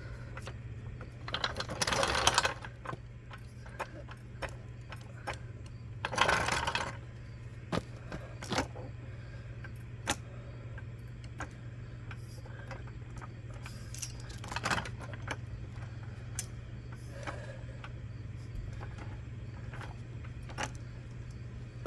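Clattering and scraping of a car bumper, jack and tools being handled during fitting, in two loud bursts a few seconds apart, with scattered clicks and knocks between; a steady low hum runs underneath.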